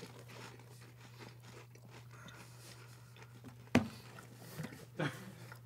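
Faint mouth sounds of tasting and chewing over a steady low hum, with a sharp click about two-thirds of the way through and another near the end.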